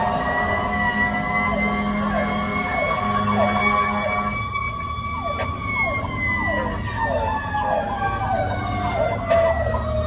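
Fire apparatus siren on a slow wail, its pitch rising and falling over several seconds, with a second siren tone making quick falling sweeps about twice a second, over a low engine rumble.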